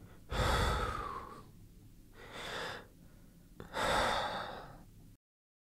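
Three long, airy swells of noise like heavy breaths, the first and last loudest, with a small click between the second and third. The sound cuts off abruptly a little after five seconds in.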